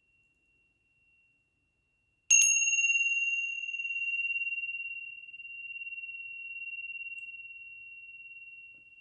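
A small high-pitched meditation bell struck once, about two seconds in, ringing on a single clear tone. The ring fades slowly with a gentle wavering pulse, and its brighter overtones die away first.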